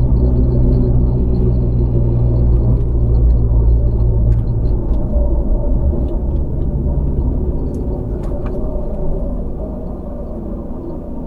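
Land Rover Freelander on the move: steady engine and road noise, getting gradually quieter over the last few seconds, with a few light clicks around the middle.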